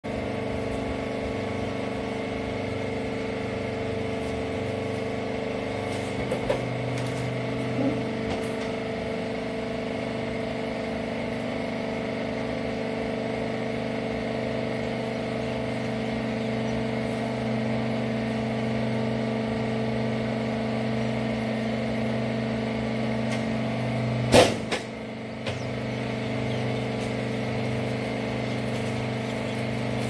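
Wiper rag baler machine running steadily with a constant mechanical drone. A few light knocks come six to eight seconds in, and one loud knock about 24 seconds in.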